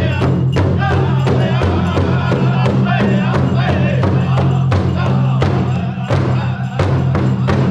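Powwow drum group: several men singing together over a large shared hand drum, all striking it in unison with beaters in a steady beat.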